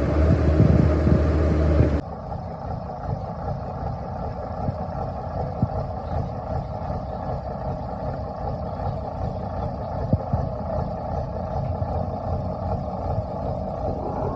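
Steady machine running noise: a loud low hum that cuts off abruptly about two seconds in, giving way to a quieter, even mechanical running sound with a few faint clicks.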